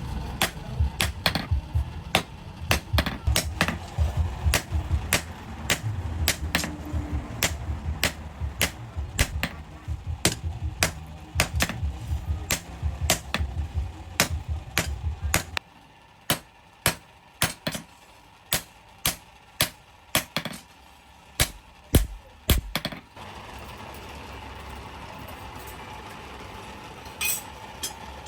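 Blacksmith's hammer striking steel on an anvil, forging a sword blade, about two to three blows a second over a low rumble. About halfway through the rumble stops and the blows slow, ending about two-thirds of the way in.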